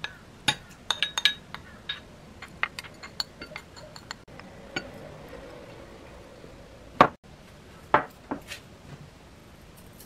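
Wooden spoon clicking and tapping against porcelain and glass bowls as chopped ingredients are scraped from one bowl into another: a quick irregular run of small clicks, then two louder knocks near the end.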